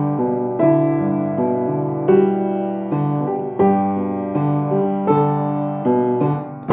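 Piano playing a slow, gentle piece, with a new note or chord struck about every three-quarters of a second over held low bass notes, each note ringing on as it fades.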